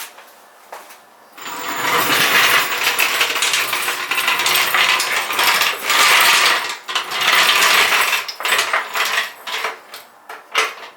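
Dense metallic clicking and rattling of hand-worked tools or mechanism, starting about a second and a half in and running on with brief dips.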